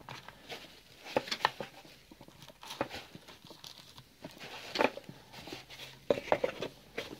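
Hands unpacking a smartphone's cardboard box: scattered rustles, light taps and scrapes as the inner tray and its paper sheet are handled and lifted out, in small clusters through the stretch.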